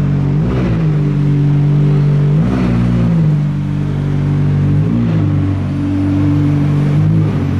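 McLaren 620R's twin-turbo V8 running at idle, with four short rises in revs roughly every two and a half seconds.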